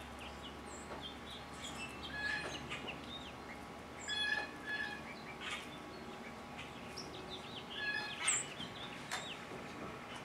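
Birds chirping and calling: scattered short chirps and quick rising whistled notes, several overlapping, loudest a little past four seconds and again around eight seconds.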